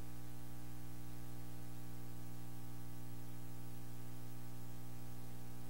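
Steady low electrical hum with a stack of buzzing overtones, unchanging in pitch and level.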